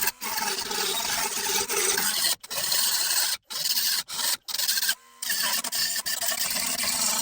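Steady rasping of abrasive work on a 1963 VW Beetle's steel door panel, stripping away a thick layer of body filler. It breaks off abruptly for a split second several times.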